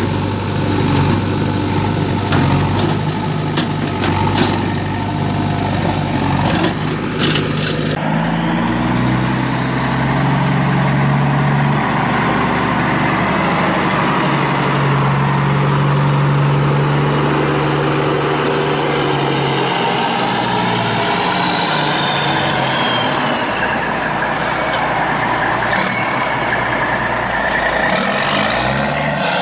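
Truck engine running steadily, with clattering over it for the first several seconds; about eight seconds in the sound switches to a smoother engine note with a high whine that slowly falls away later on.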